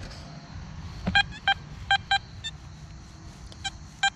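XP Deus metal detector sounding a high-tone target signal as the coil sweeps back and forth over it: about six short beeps, mostly in pairs, starting about a second in. The signal is a solid 86 at 28 kHz under the full tones program.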